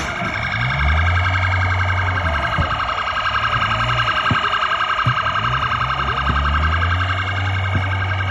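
Police car siren sounding throughout, a steady, fast-pulsing electronic tone, over a low rumble that comes and goes.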